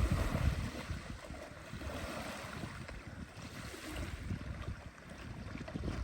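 Wind buffeting the microphone in uneven gusts over the wash of water and small waves.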